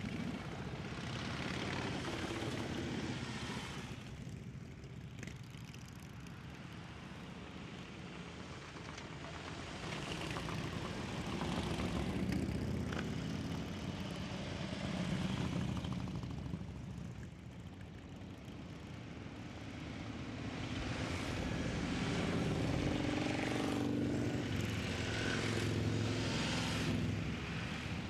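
A low rumble of several motorcycle engines running, swelling and fading several times.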